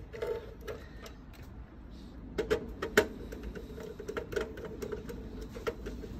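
Hands fitting wires into the terminal block of a defrost timer: irregular clicks and taps of wire, plastic and metal, the loudest about three seconds in.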